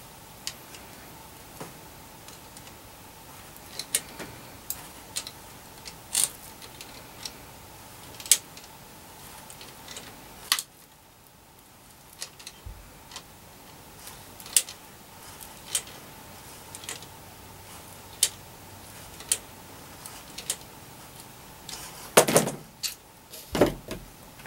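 Scattered sharp metallic clicks and taps of slip-joint pliers gripping and turning a PL-259 coax connector, with a few louder knocks near the end.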